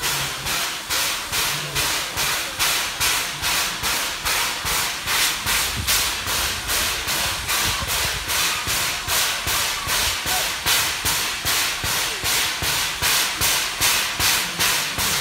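Steam locomotive exhaust chuffing steadily from the stack, about three even beats a second.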